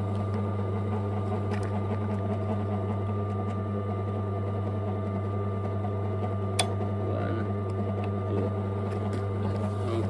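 Silca AY100 key cutting machine's electric motor running with a steady hum. A single sharp click about two-thirds of the way through.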